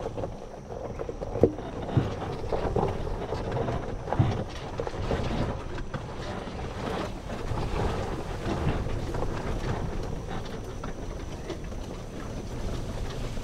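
Golf cart driving over rough grassy ground: steady running noise with rattling, and a few sharp knocks from bumps early in the ride. Wind buffets the microphone.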